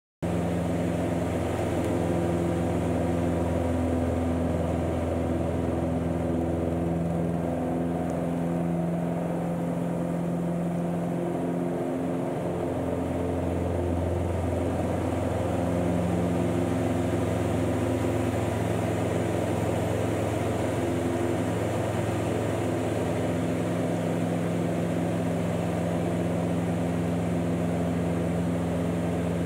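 Van's RV-8 light aircraft's piston engine and propeller running steadily in flight, starting abruptly a moment in, with small shifts in pitch as power and airspeed change.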